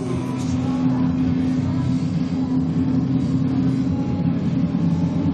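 KT-1B Wongbee turboprop trainers of an aerobatic team flying overhead in formation, their propellers giving a steady droning hum.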